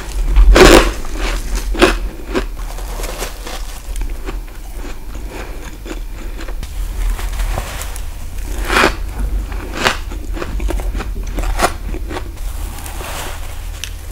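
Close-miked bites into frost ice built up in a deep freezer: sharp crunches with crackling between them. The loudest bite comes in the first second, another follows about a second later, and a few more come in the second half.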